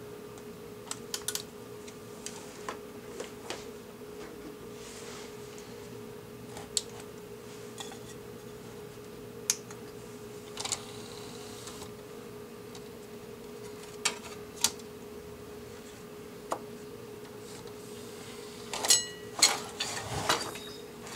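Sparse plastic clicks and taps from handling an opened Philips under-cabinet CD player, its front-panel buttons and CD mechanism. The clicks get louder and come in a quick cluster near the end as the mechanism is lifted. A steady low hum runs underneath.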